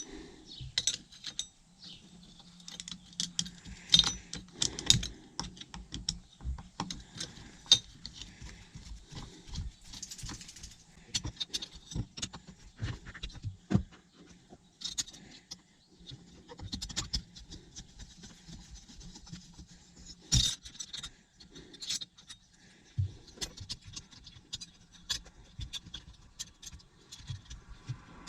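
Irregular small metal clicks, taps and scrapes of a screwdriver and screws as the steering column's Phillips screws are put back in, with parts handled in between.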